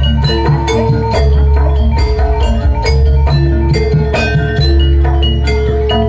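Jaranan dance music: quick struck metal mallet notes and drum strokes over a deep, sustained bass, with a held melody line moving between notes about every second.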